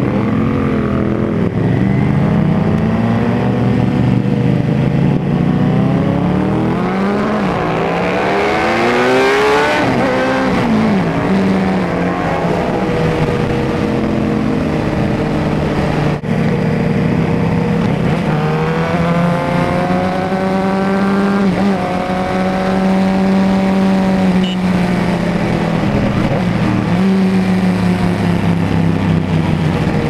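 Suzuki GSX-R750 inline-four engine pulling hard from a standstill, the revs climbing in pitch through the gears for about nine seconds and then dropping back to a steady cruise. A second run of rising revs comes about two-thirds of the way through, then it settles to a steady cruise again.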